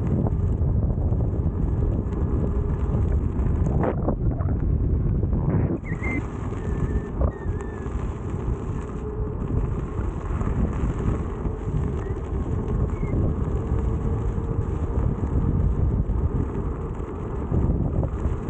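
Steady, loud wind rumble on the microphone from riding a KingSong S22 electric unicycle at speed.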